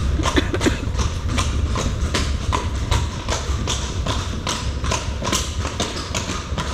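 A horse's hooves clip-clopping on pavement at a steady pace, about two to three strikes a second, over a low steady rumble.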